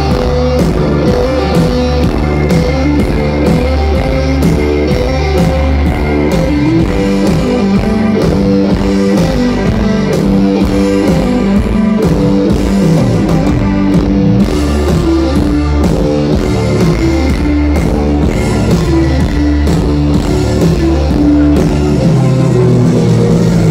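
Live rock band playing loud through a festival PA: electric guitars, bass, keyboards and drums, with a steady beat and a heavy bass line.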